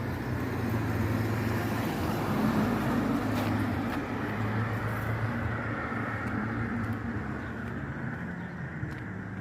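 Motor-vehicle traffic: a steady engine hum with road noise, a little louder about two to three seconds in.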